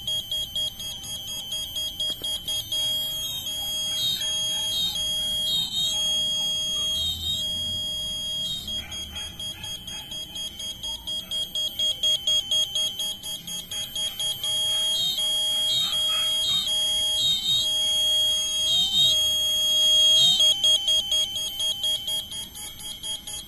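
Piezo buzzer driven by a breadboard electronic circuit, sounding a continuous, rapidly pulsing high-pitched electronic alarm tone, with a lower warbling tune of stepping notes underneath.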